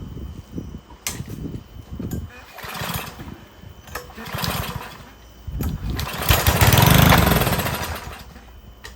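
Cub Cadet LE 100 edger's 159cc single-cylinder engine pull-started several times, firing in short spurts, then catching and running for about two seconds before it fades and dies. Starting and dying like this is what the owner puts down to a dirty carburetor.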